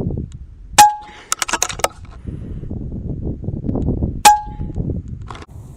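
Two shots from an FX King .22 PCP air rifle about three and a half seconds apart, each a sharp crack with a brief ringing tone. A quick run of clicks follows the first shot, the rifle being cycled for the next pellet.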